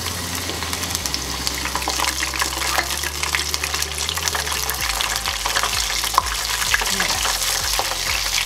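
Wontons deep-frying in hot corn oil in a small saucepan: the oil sizzling with a dense, steady crackle. A wire spider strainer stirs and turns them in the oil.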